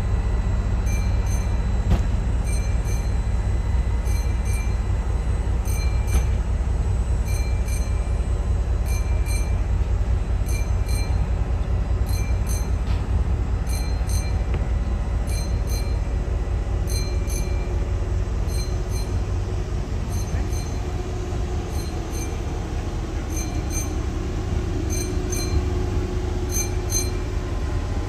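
Train running on the rails: a steady low rumble, with short high-pitched squeaks recurring every second or two.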